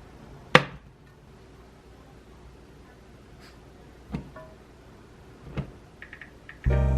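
A few sharp knocks or clunks in a quiet small room: a loud one about half a second in, two more later, then faint clicks. Loud background music starts just before the end.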